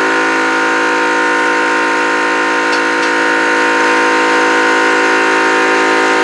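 Yong Heng portable high-pressure PCP air compressor running steadily while filling an air rifle, a loud, even whine made of many steady tones.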